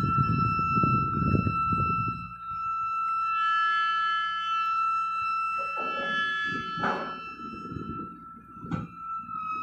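Telescoping mobile cell tower mast extending, giving off a steady high-pitched screech with several overtones. Low rumbling noise comes and goes beneath it, with two sharp knocks near the end.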